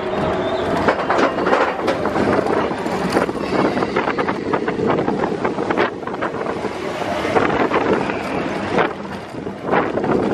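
Expedition Everest roller coaster train running along its track, its wheels clattering, with wind buffeting the microphone.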